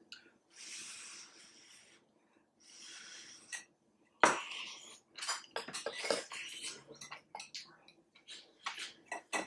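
Eating hotpot: two hissy slurps of noodles and soup in the first few seconds, then a sharp knock and a run of small clicks of chopsticks and spoons against bowls, with chewing.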